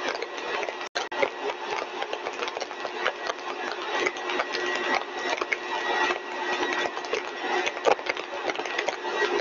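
Single-stage lab compressor rig (rotor and stator) running steadily at full design speed: a dense mechanical whirr carrying a couple of constant tones, with frequent crackling clicks. The sound cuts out for an instant about a second in.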